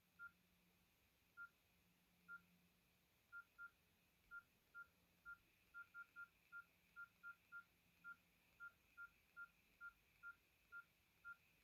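Nokia N70 keypad tones: about two dozen short, faint beeps, all at one pitch, at uneven intervals that come quicker after the first few seconds, as the navigation key is pressed over and over to scroll up a menu list.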